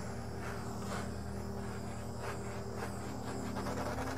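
Handheld butane torch flame hissing as it is passed over wet acrylic pour paint to pop air bubbles in the surface, over a steady low hum.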